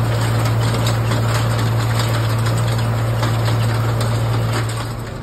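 Ford tractor's engine running steadily while pulling a side-delivery hay rake, with the rake clattering and ticking over the rows of hay.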